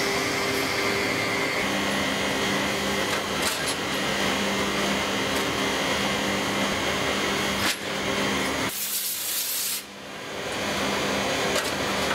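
Factory machinery running with a steady hum, its character changing abruptly a few times. About nine seconds in, a sharp hiss lasts about a second.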